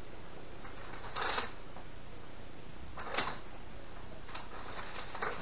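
Short rustling handling noises, three times, as wrapped Christmas presents are picked through, over a steady low background hum.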